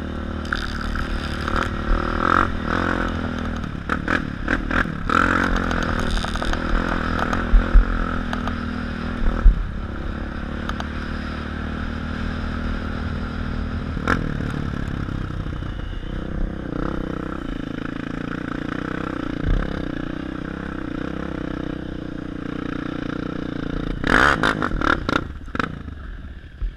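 Sport ATV engine running under way off-road, with loose gravel and stones clattering and scraping under the tyres and sharp knocks over bumps, the knocks bunched in the first third and in a burst near the end.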